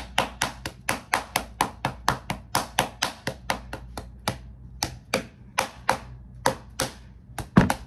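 Rapid run of sharp hand slaps, about four or five a second, thinning out partway through, with the loudest slap near the end.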